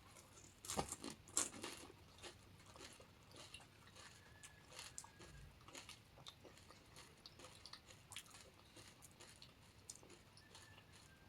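Faint mouth sounds of chewing panipuri: a few louder crunches of the crisp puri shells about a second in, then soft scattered chewing clicks.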